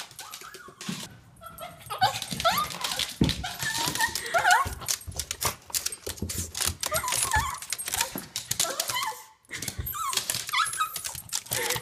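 Japanese Chin dog whining and squealing with excitement: short, high, rising squeals in several bursts, among scattered clicks and knocks.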